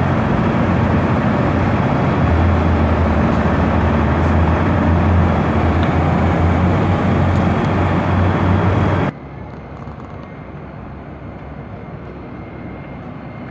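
Many diesel tractor engines revving together in a loud, sustained mass racket, with a heavy low hum underneath that builds about two seconds in. About nine seconds in it cuts off abruptly to a much quieter background.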